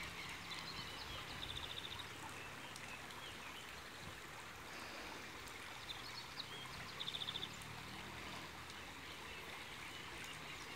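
Shallow stream flowing over stones and mud: a faint, steady rush of water. Twice, about a second and a half in and again about seven seconds in, a short, high, rapid trill sounds over it.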